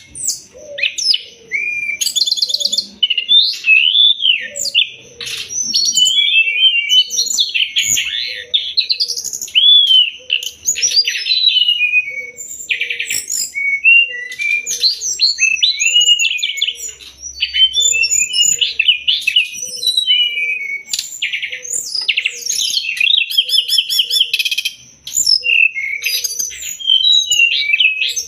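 Sikatan rimba dada coklat (brown-chested jungle flycatcher) singing a continuous, varied song of whistled glides, rapid trills and chirps, the kind of recording played to tutor a caged bird. Behind it there is a steady high-pitched tone, and short low notes repeat about once a second.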